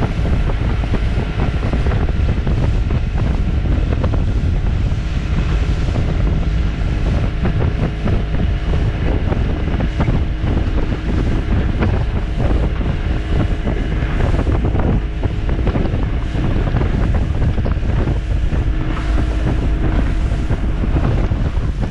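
Wind buffeting the microphone over the steady drone of a Mariner outboard motor running at speed and the rush of its churning wake.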